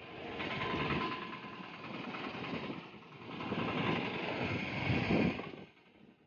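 Motor vehicle engines running in street traffic, swelling and fading in loudness, then dropping away sharply near the end.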